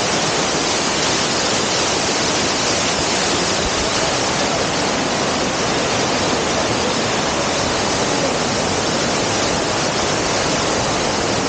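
Waterfall's loud, steady rush of falling water, running high and forceful after rain.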